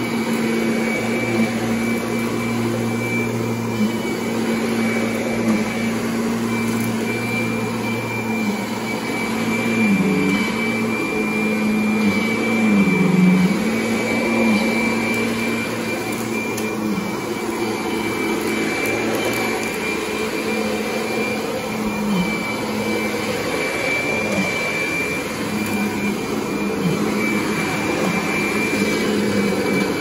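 Kirby Sentria upright vacuum cleaner running over shag carpet: a steady motor hum with a high whine on top, the hum dipping briefly in pitch a few times.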